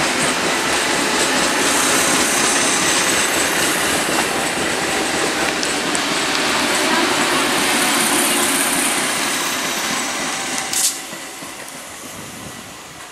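Electric multiple unit local train passing close by: steady noise of wheels on rail from the coaches going past. About eleven seconds in there is one sharp clack, and then the sound dies away.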